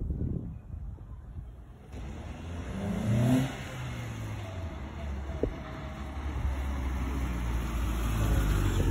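Volkswagen Citi Golf driving up toward the listener. Its engine revs up briefly about three seconds in, then runs steadily, growing louder as the car comes closer.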